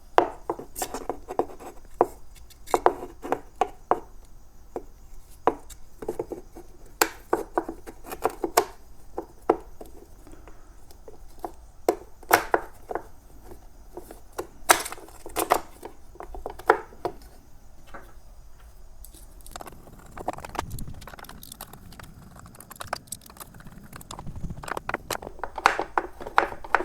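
Irregular metal clicks, clinks and knocks from a metal electric unicycle pedal being handled and worked on, some with a short ring; there is a quieter stretch of a few seconds in the second half.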